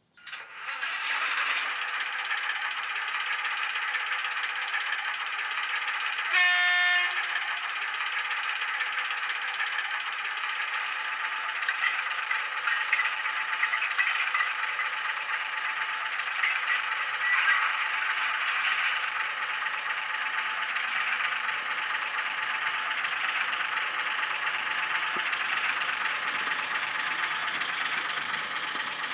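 DCC sound decoder playing a Ruston PWM diesel shunter through the model locomotive's small speaker: the engine sound comes in from silence just after the start and runs steadily, with a single horn blast about six seconds in, as the shunter pulls away with its wagons.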